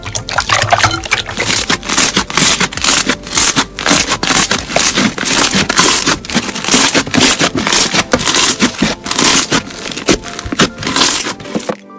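Crunchy slime being pressed and worked, a dense run of crackles and crunches that stops suddenly near the end.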